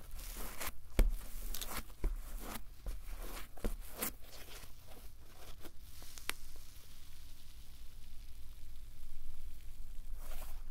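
Cloud slime, a slime fluffed up with instant-snow absorbent polymer, squeezed and kneaded by hand: soft crackling, squishing and tearing. It quiets for a few seconds past the middle as the slime is pulled out, then the crackles return near the end.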